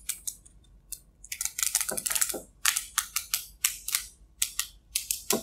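Clear adhesive tape being drawn off its reel and wrapped around a metal mandrel: irregular runs of quick crackles and clicks.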